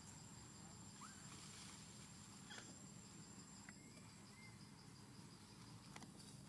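Faint forest ambience, close to silence: a steady high insect drone with a second insect pulsing about four times a second. A few brief, faint rising squeaks from an animal come through, about a second in and again later on.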